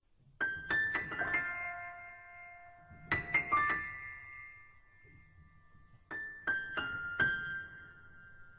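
Background piano music: short phrases of a few quick notes that ring on and fade, played three times.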